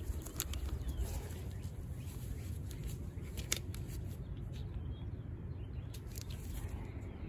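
Gloved hands handling a cordless impact wrench and fitting its chrome socket onto a lug nut: a few sharp clicks and rustles over a steady low rumble, with the wrench not running.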